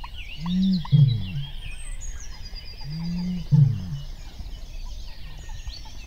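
Male Eurasian bittern booming: deep, low-pitched, foghorn-like booms in two short bursts about three seconds apart, the male's call to see off rival males and attract a mate. Small songbirds sing high above it throughout.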